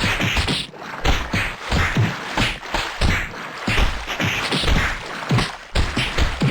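A rapid series of sneezes, one after another at about two a second, each a sharp, noisy blast of breath.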